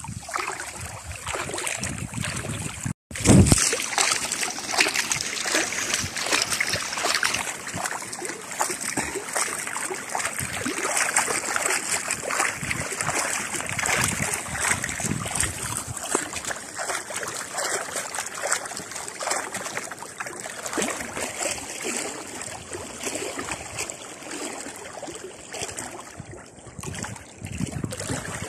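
Sea water splashing and sloshing irregularly, with a brief break of silence about three seconds in.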